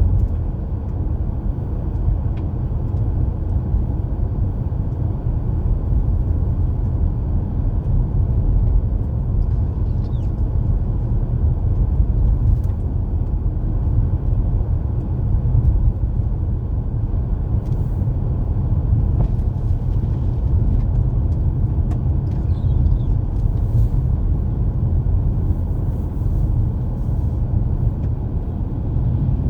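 Steady low rumble of a car driving on a snowy road, with engine and tyre noise from inside the cabin and a few faint ticks.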